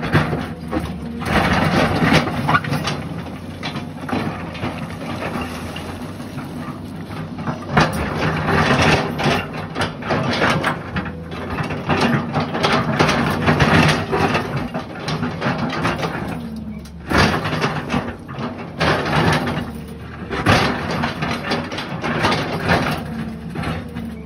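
Hydraulic excavator running steadily under load as its toothed steel bucket digs and scrapes through broken rock, with constant grinding and cracking of stones. The digging noise dips briefly about two-thirds of the way through.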